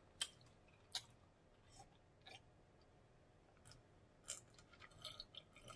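Near silence, broken by a handful of faint short clicks: mouth sounds of eating, and sips and swallows from a plastic cup.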